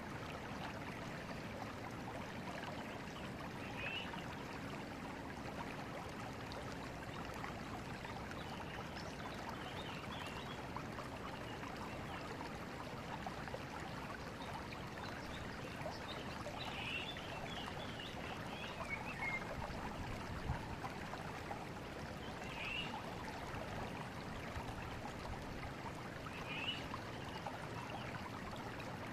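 Forest river flowing steadily, a continuous rushing and trickling of water over stones. A few short high chirps sound now and then over it.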